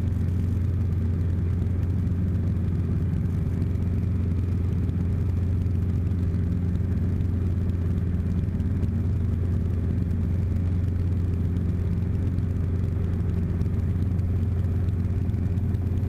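Robinson R22 helicopter heard from inside its cabin in flight: a steady low drone of the engine, rotors and transmission that holds even throughout.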